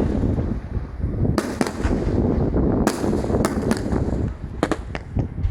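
Fireworks bursting: about eight sharp bangs at irregular intervals, some in quick pairs, over a continuous low rumble.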